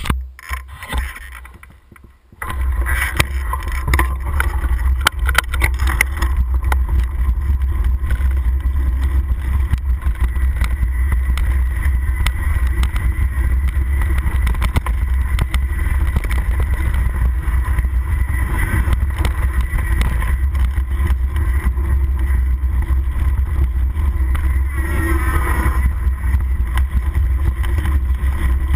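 Wind buffeting the microphone of a camera on a descending mountain bike's handlebars: a steady low rumble, with dense rattling and clicking from the bike jolting over a rough dirt trail. It is quieter for the first two seconds, then loud.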